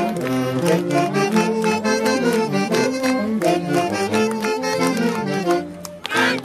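Live traditional Andean dance music played by a band with saxophones: a lively reed melody over a steady dance rhythm, briefly dipping near the end.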